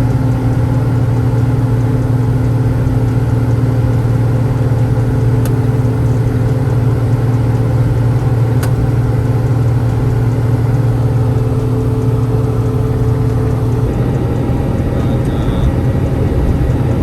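Semi-truck diesel engine running steadily at highway speed, a constant hum over road noise. About 14 seconds in, the engine note changes.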